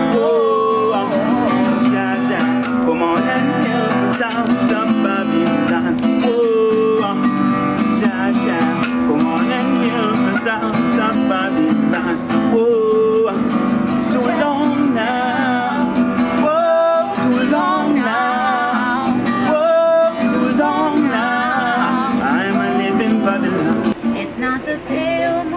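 Acoustic guitar with a man singing a slow, gliding melody. Near the end it changes to a woman singing over acoustic guitar.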